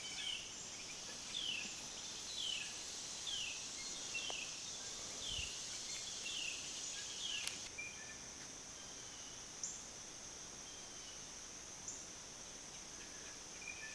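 Woodland ambience: a steady high insect drone, with a bird calling a string of about eight short downslurred notes over the first seven seconds, then only the drone.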